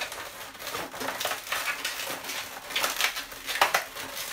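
Inflated latex modelling balloons rubbing and squeaking against each other as they are handled and twisted together, a run of irregular squeaks and rubs.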